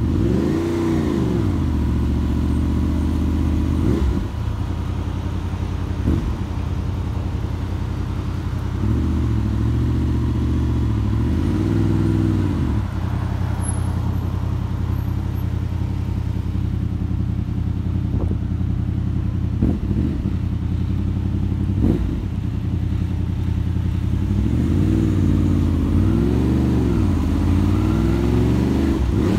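Motorcycle engine heard from the rider's seat. It revs up and eases off several times, with the note rising and falling near the start, in the middle and again near the end, and runs steadily in between.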